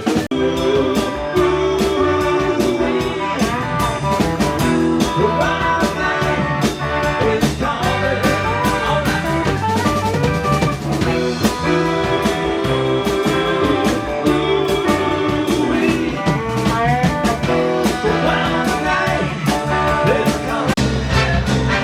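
Live band playing an instrumental passage: drum kit with rimshots keeping a steady beat under guitar and sustained horn lines.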